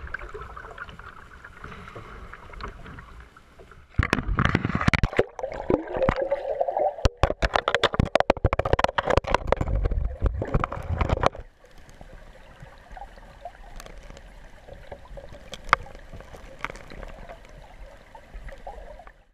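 Kayak paddling on open water: paddle strokes splashing with sharp knocks and water noise, loudest and busiest for several seconds in the middle, with quieter lapping water before and after.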